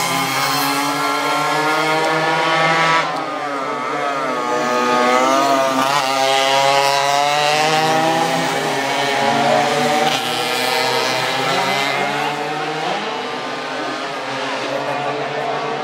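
Racing Tomos two-stroke moped engines revving hard as the bikes pass one after another through a corner. The pitch rises and falls with each gear change, and the engines overlap.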